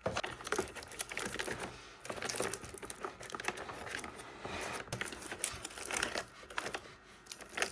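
Packaging crinkling with many light clicks and knocks as drinks are handled and set into a mini fridge.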